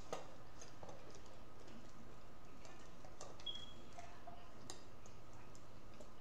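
Metal cutlery clicking and scraping against dinner plates during eating, as a knife and fork cut through food: a handful of scattered clicks, with a brief high squeak about three and a half seconds in.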